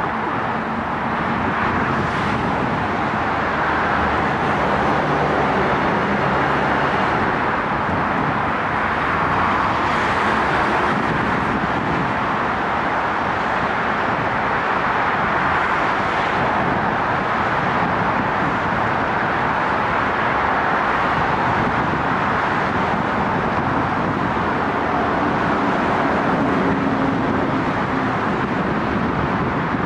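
Steady road traffic noise: the tyre roar of passing cars, swelling and easing gently as vehicles go by, with a faint low engine hum now and then.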